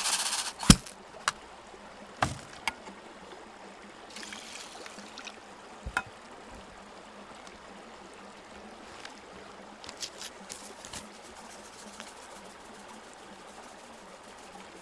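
Rice being washed in an aluminium mess tin: a short rush of sound that stops about half a second in, then a loud sharp knock of the tin and a few lighter knocks over the next few seconds. After that there is only a faint steady hiss, with a few light clicks near ten seconds.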